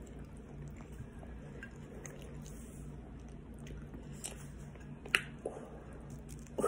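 A person chewing food close to the microphone, with small wet mouth clicks and one sharper click about five seconds in, over a steady low hum.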